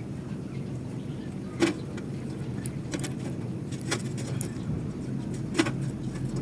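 Several sharp clicks and taps of a rewound wire heating coil being worked off a wooden chopstick, over a steady low background hum.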